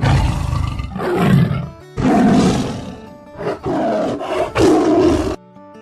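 A big cat roaring and growling in a series of rough calls over background music; the roaring cuts off abruptly near the end.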